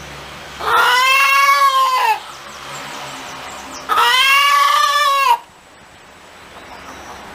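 A chicken giving two long, drawn-out calls about a second and a half each, a couple of seconds apart, each rising and then falling in pitch.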